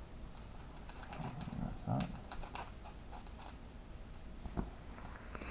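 Light crackles and clicks of a card box topper and its wrapper being handled and opened by hand, with a short low voice-like sound about one and a half seconds in.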